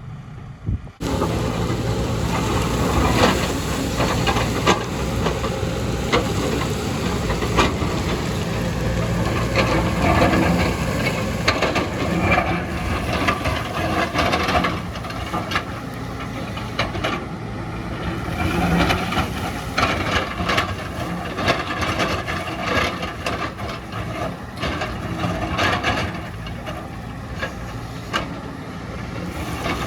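Excavator's engine running steadily under load, with frequent knocks and scrapes from the bucket working earth and rock.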